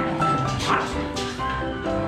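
Background music with a melody of held notes, and a dog barking once, briefly, under it about two-thirds of a second in.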